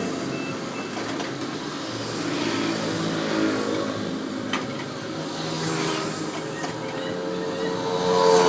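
Heavy diesel machinery engine running under load, its note rising as it revs up near the end.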